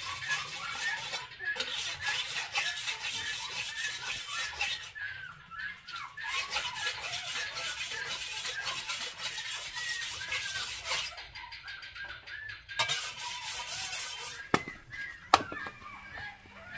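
A knife being sharpened on a stone: the blade scraped back and forth in quick repeated strokes, which stop for a moment about two thirds of the way in and resume briefly. High bird-like chirps go on underneath, and near the end come two sharp knocks.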